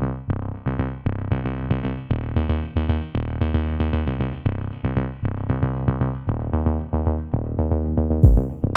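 Electronic background music: synthesizer notes over a drum-machine beat, in a quick steady rhythm.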